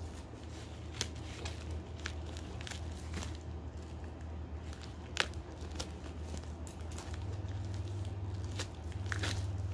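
Packaging being handled and torn open: irregular crinkling, rustling and sharp crackles, with a steady low hum underneath.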